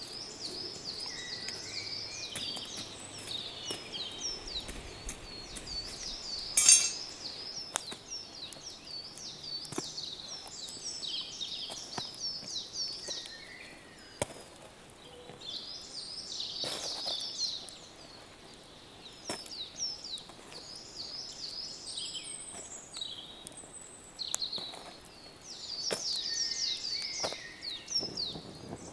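Small birds singing steadily with quick repeated chirping phrases, over scattered sharp metal clinks of tongs against the stones as whole eggplants are laid on the embers; the loudest clink, about six and a half seconds in, rings briefly.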